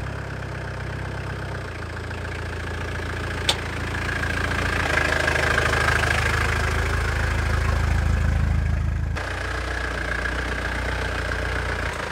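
Mitsubishi Delica van's engine running, its sound changing abruptly a few times and louder in the middle. One sharp click about three and a half seconds in.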